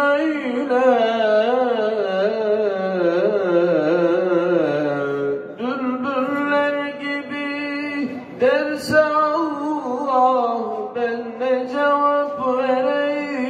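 A man sings a Turkish ilahi (Islamic hymn) solo into a microphone. He draws out long melismatic phrases with wavering ornaments on held notes and pauses briefly for breath about five and a half and eight and a half seconds in.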